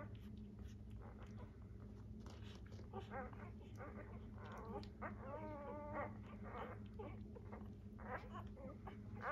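Newborn Labrador retriever puppies squeaking and grunting as they nurse, with one longer wavering whimper about five seconds in. A faint steady hum runs underneath.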